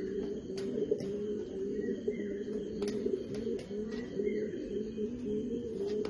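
Fantail pigeons cooing steadily, several coos overlapping, with occasional sharp clicks.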